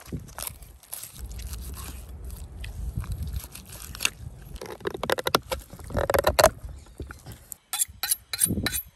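A large knife cutting and scraping through raw beef and membrane on a cow's head, with irregular wet scraping and crunching strokes, loudest about five to six seconds in. Near the end comes a quick run of sharp strokes, the knife being honed on a steel.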